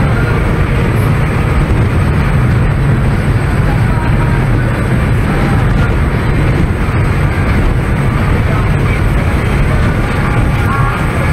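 Steady, loud rush of wind buffeting the microphone, mixed with the drone of a speeding tour boat's engines, heard from its open deck.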